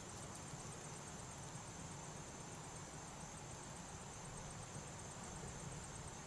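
Quiet woodland background: a faint, steady hiss with a thin high tone running under it, and no distinct sound events.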